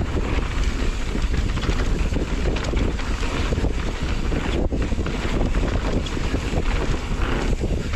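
Steady rush of wind on the microphone of a mountain bike descending a dry dirt trail at speed, over the low rumble and chatter of knobbly tyres and the bike rattling over the ground.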